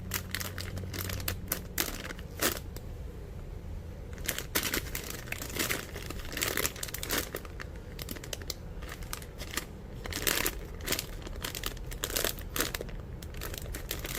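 Plastic packaging crinkling as it is handled, a run of irregular crackles.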